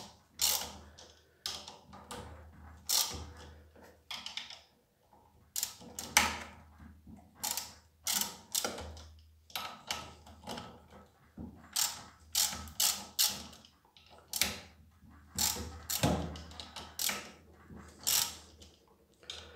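Hand ratchet wrench clicking in short, uneven runs as the mounting screws of a pressure washer's water pump are undone.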